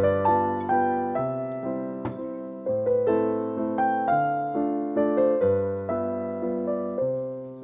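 Background piano music: a gentle melody of notes struck a couple of times a second and left to ring over lower chords.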